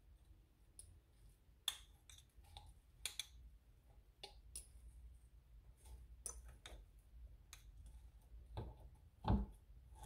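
A metal spoon clinks and scrapes against a small glass beaker while mashing raspberries, giving irregular sharp ticks. Near the end come two heavier, duller knocks.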